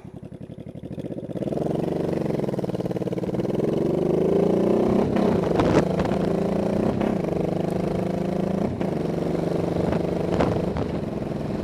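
1985 Honda Shadow VT700C's V-twin engine running low at first. About a second in it pulls away, its note rising as it accelerates, then it runs steadily, with a few short clicks along the way.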